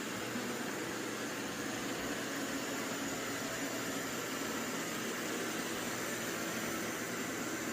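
FIXR robot vacuum running: a steady whirring hiss from its suction fan, with a faint hum under it.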